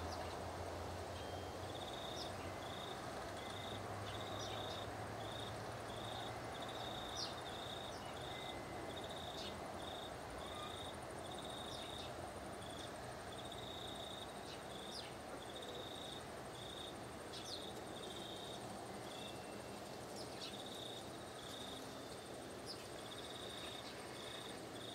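Insects chirping steadily in short buzzy pulses, about one or two a second, over a faint outdoor background hum, with a few brief faint ticks.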